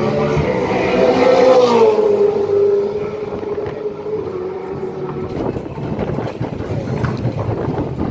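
Supercars V8 race car engines. One engine note rises and then falls about two seconds in as a car passes. From about five seconds in there is a rougher, uneven engine sound as cars roll slowly down the pit lane.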